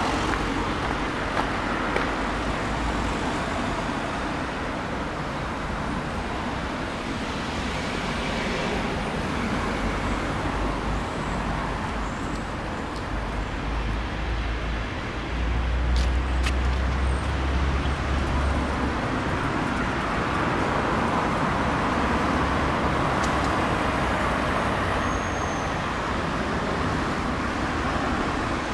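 Road traffic: a steady wash of passing cars, with a louder low rumble for a few seconds about halfway through.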